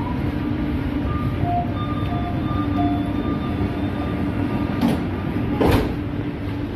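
Metro train running, heard inside the carriage: a steady rumble with faint tones that step in pitch as the drive works. Two sharp knocks about five and six seconds in.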